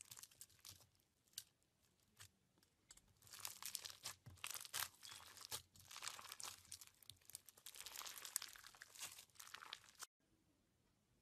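Hands squeezing and kneading slime packed with clear plastic beads: irregular crunchy crackling and clicking, densest through the middle, cutting off suddenly about ten seconds in.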